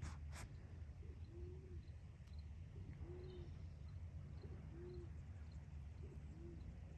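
A dove cooing softly: five short, low hoots about a second and a half apart, each led by a faint short note. Faint high chirps of small birds sound behind it, and there are two sharp clicks at the very start.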